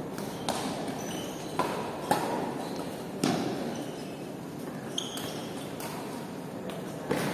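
Badminton rally: about six sharp cracks of rackets striking the shuttlecock, with short squeaks of court shoes on the floor, over a steady background hum.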